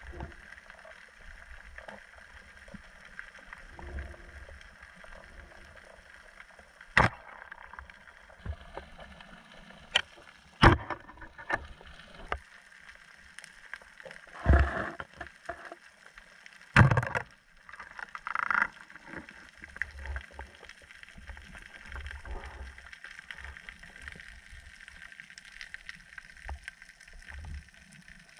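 Underwater sound heard through a submerged camera: a dull, muffled wash of moving water, broken by several sharp knocks and bumps, the loudest about a third and halfway through.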